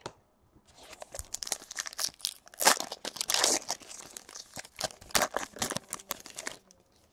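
Plastic foil wrapper of a trading-card pack being torn open and crumpled by hand: a dense run of crackling and tearing that starts about a second in and stops shortly before the end.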